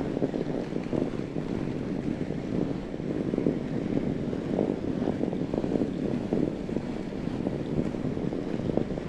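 Fat-bike tyres rolling steadily over snow, with wind buffeting the microphone.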